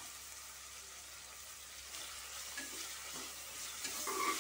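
Onions, tomatoes and ginger-garlic paste sizzling in hot oil in an aluminium pressure cooker, a steady hiss. From about halfway through, a metal slotted spoon stirs and scrapes against the pan, loudest near the end.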